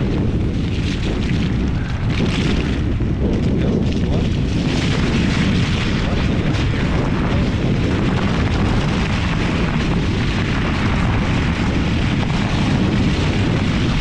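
Wind buffeting the microphone of a camera mounted on a moving fat-tire electric bike: a loud, steady, low rumble that rises and falls a little, with the ride's tyre noise on the snowy road mixed in.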